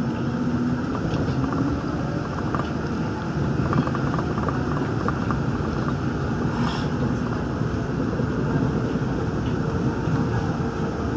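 Steady running noise of a Daegu Metro Line 3 straddle-beam monorail car heard from inside the cabin while travelling between stations: its rubber tyres and drive rumbling on the guideway, with a short hiss about two-thirds of the way through.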